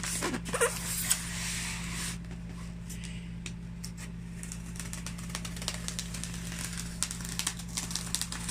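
Cardboard toy box being cut and pried open: scraping and rustling about a second in, then scattered sharp clicks that come thicker near the end, over a steady low electrical hum.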